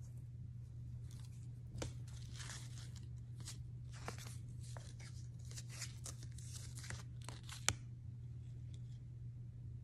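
Handling noise of a T-shirt and its paper price tag: scattered rustling and crinkling with short clicks, and one sharp click about eight seconds in, over a steady low hum.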